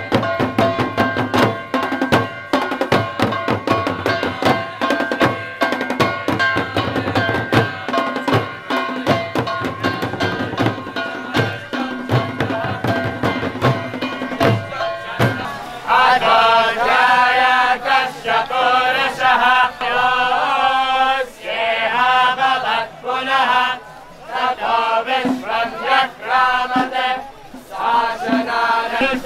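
Devotional kirtan music: hand drums played with many quick strikes, and about halfway through, voices start singing over the drumming.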